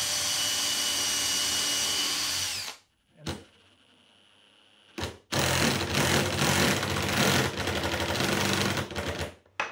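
Cordless drill running steadily as it bores a pilot hole through a small solid maple block, stopping just under three seconds in. After a couple of clicks, a cordless impact driver hammers a screw into the wood for about four seconds and stops near the end.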